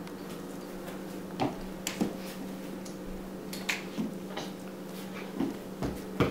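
A toddler handling a small toy doll stroller: scattered light clacks and taps, about eight in six seconds, the loudest near the end, over a steady low hum.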